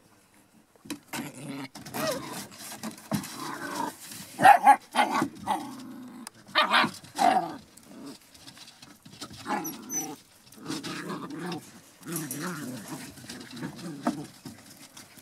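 Young Border Collie puppies growling as they play together, broken by a few short, sharp yips, the loudest around the middle.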